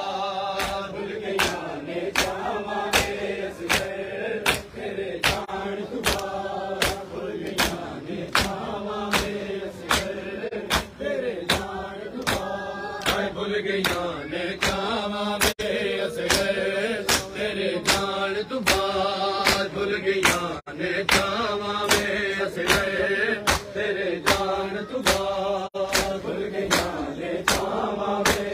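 Men chanting a Shia mourning noha together, with a steady beat of open-hand slaps on bare chests (matam) in time with the chant, about three slaps every two seconds.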